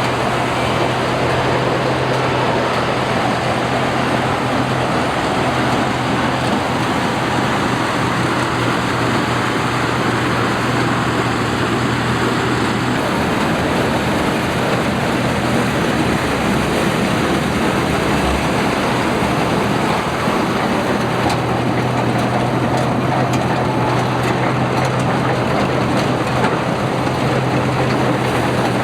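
Combine harvester running steadily in a rice field: a continuous mechanical noise with a low engine hum that fades for several seconds in the middle and then comes back.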